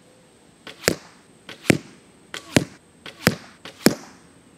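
Arrows from a dual-cam compound bow hitting an archery target five times, about three-quarters of a second apart. Each sharp hit comes about a fifth of a second after a fainter snap, the bow releasing the shot.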